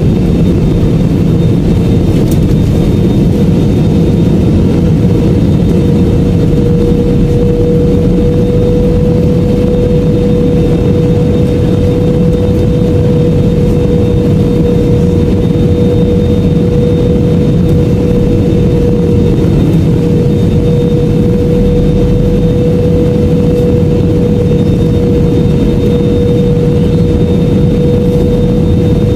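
Jet airliner cabin noise in flight: a loud, even roar of engines and airflow, with a steady hum in the middle that grows stronger a few seconds in.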